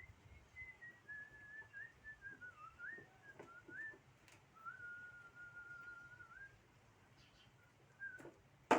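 A person whistling a slow, wandering tune, with one long held note in the middle. A sharp knock near the end.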